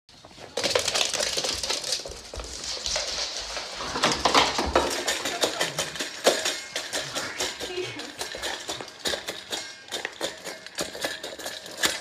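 A dog eating from a stainless-steel bowl: rapid clinks and rattles of food and muzzle against the metal, several a second.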